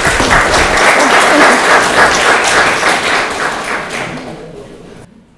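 Audience applauding, a dense patter of many hands clapping that fades and stops near the end.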